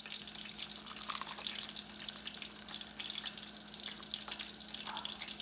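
Food deep-frying in hot oil in a saucepan on a gas stove: a steady crackle and sizzle with scattered small pops.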